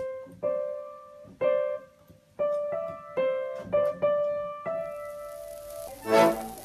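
Upright piano keys pressed one at a time by a cat's paws: about nine separate notes in the middle register at uneven intervals, each ringing and dying away. Near the end, livelier background music cuts in.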